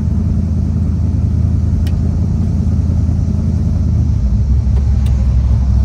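Car engine and exhaust through new MagnaFlow mufflers, heard from inside the cabin while driving: a steady low note that gets a little louder about four seconds in.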